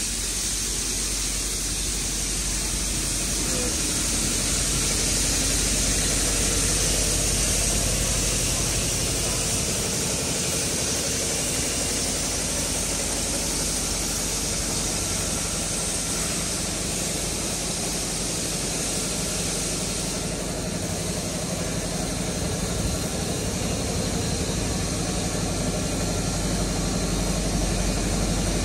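C38 class steam locomotive 3801 and its tender pulling slowly out, with a steady hiss of steam over a low rumble.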